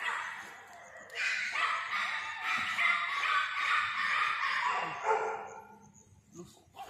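Belgian Malinois barking hard in a rapid, near-continuous run while being agitated into lunging at a bite sleeve in protection training. The run breaks off about five and a half seconds in, followed by a couple of short yelps.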